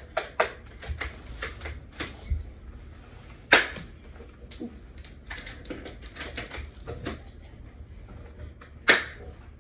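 Spring-cocked BB guns being worked and fired: many small clicks and rattles, with two sharp, louder snaps, one about three and a half seconds in and one near the end.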